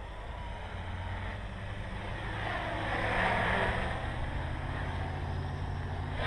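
Armattan CNC 355 quadcopter's electric motors and propellers whirring in flight, swelling loudest a little past the middle, then easing back.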